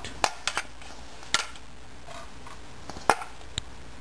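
A bowl knocking against a nonstick frying pan as grated coconut is tipped in: a handful of short, sharp knocks, the loudest about three seconds in.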